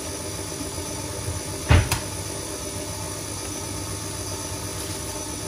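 KitchenAid Artisan stand mixer running steadily, its wire whisk beating flour into a thick cake batter in a steel bowl. A single loud knock comes about two seconds in.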